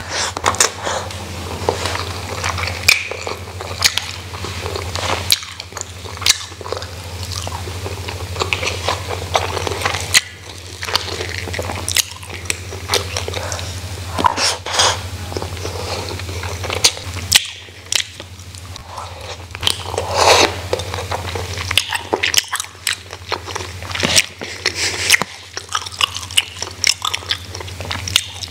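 Close-miked eating sounds of a person chewing handfuls of rice and side dishes eaten by hand. Many wet mouth clicks and smacks come through, with occasional crunches.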